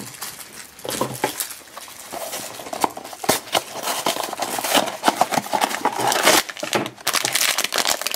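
A cardboard blind box being opened by hand, then a foil blind bag crinkling as it is pulled out and handled. Many small crackles and taps, growing busier near the end.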